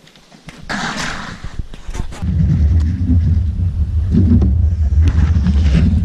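Bicycle tyres rolling over the planks of a wooden boardwalk, a loud low rumble carried through the boards that builds as the bike comes close and passes right by.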